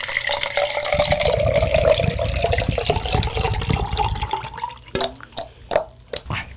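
A canned drink poured into a glass jar mug, splashing steadily, with a pitch that rises as the jar fills. The pour stops about five seconds in, followed by a few light knocks and taps.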